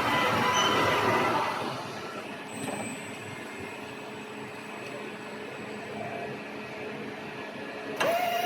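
Factory machinery hum. A louder noisy stretch fades out about one and a half seconds in, and near the end a steady motor whine starts abruptly.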